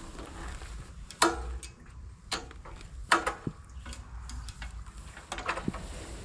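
Irregular sharp knocks and clicks, five or so, a few with a brief metallic ring, over a faint steady low hum.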